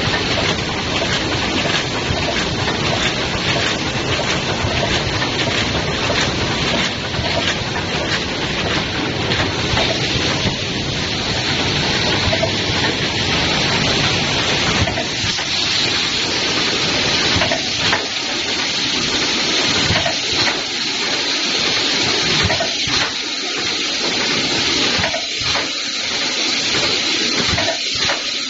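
PVC insulation tape packing machine running: a steady hiss-like machine noise with a faint high whine. In the second half the low hum drops away and irregular clicks and knocks from the mechanism come through.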